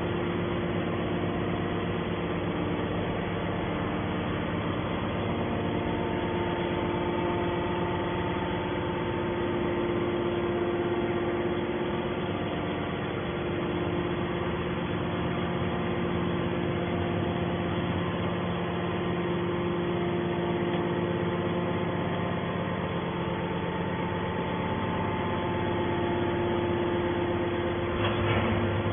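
Hydraulic baling press machinery running: a steady mechanical hum with several constant tones.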